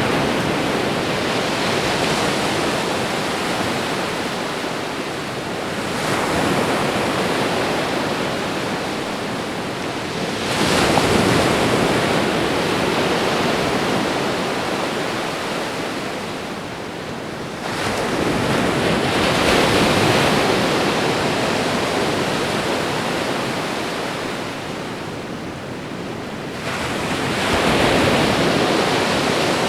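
Ocean waves breaking on a shore: a continuous wash of surf with four louder surges several seconds apart, each fading away gradually.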